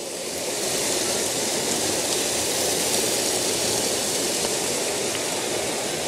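Steady rush of a small waterfall's strong flow, pouring and churning into white foam just below.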